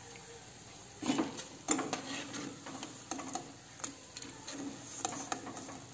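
A perforated metal slotted spoon scraping and clinking against a metal kadai while lifting fried jackfruit fritters out of the oil: a scattering of light knocks and scrapes over a low background.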